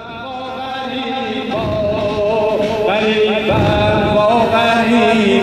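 A man's voice chanting an Ashura mourning lament (noha) in long, wavering held notes, swelling in over the first second or so.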